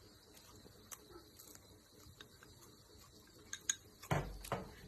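Eating sounds at a meal: scattered light clicks and taps of utensils and dishes, with a louder thump about four seconds in.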